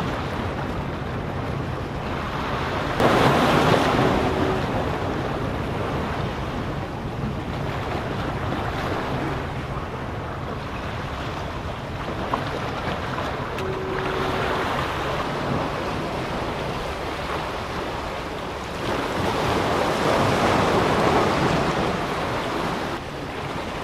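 Ocean surf washing against shoreline rocks, with wind on the microphone; the wash swells louder about three seconds in and again around twenty seconds.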